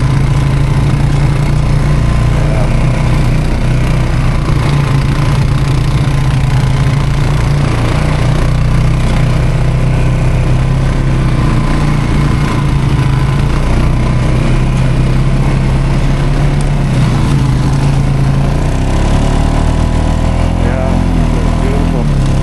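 ATV engine running steadily at low speed as the quad crawls along the trail, its pitch shifting about three-quarters of the way through.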